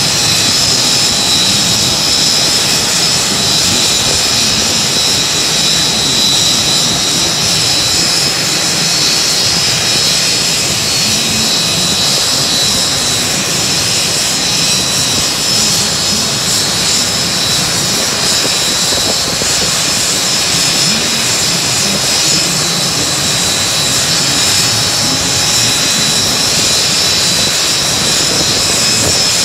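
Aircraft turbine engine running steadily: an even rush of noise with a constant high whine over it.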